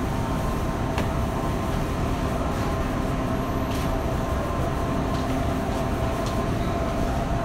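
Supermarket background noise: a steady low rumble with a faint hum and a few light clicks and knocks.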